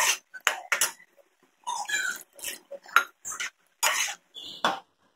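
Steel ladle stirring thick curry in an aluminium pot: a run of about a dozen short wet squelches and metal scrapes, one per stroke.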